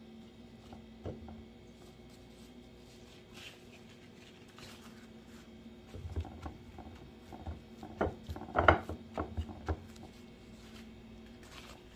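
Hands patting and pressing a paper towel down onto eggplant slices on a plate to blot off their moisture: a run of soft pats and rubs in the second half, the loudest a little before the end, over a faint steady hum.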